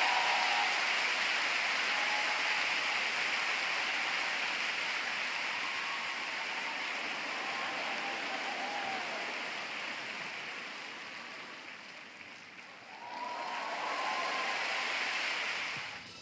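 Large arena crowd applauding, fading over about twelve seconds, then swelling again briefly near the end.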